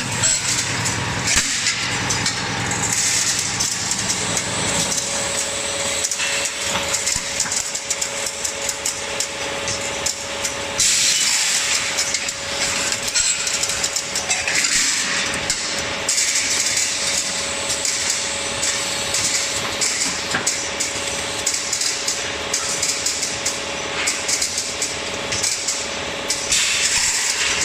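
Welding electrode packaging machinery running: a continuous clatter of quick clicks and knocks over a hiss, with a steady hum setting in about five seconds in.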